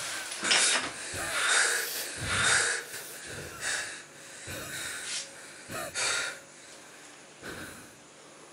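A man breathing hard in loud, ragged gasps, each breath in and out following closely on the last. The breaths are strongest in the first few seconds and grow fainter toward the end.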